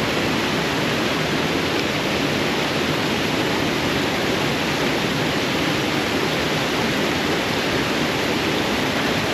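Steady rush of water from a waterfall on a stream, even and unbroken.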